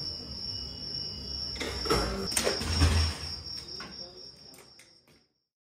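Crickets chirring in a steady high tone, with a few knocks and scrapes as rice is scooped by bucket out of the big metal cauldron, and faint voices in the background. It all fades out near the end.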